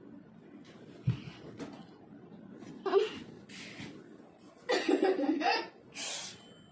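A person's short bursts of laughter mixed with coughing and breathy exhales, the loudest laugh coming about five seconds in.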